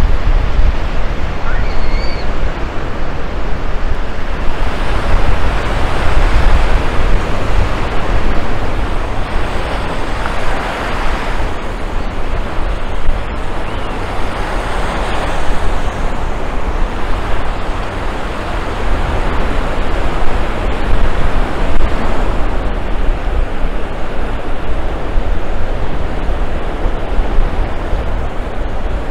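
Ocean surf breaking and washing up the beach, swelling and fading every few seconds, with wind rumbling on the microphone.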